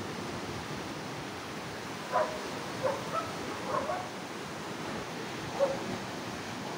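A steady rush of sea surf washing over rocks, with a dog barking about five times from about two seconds in.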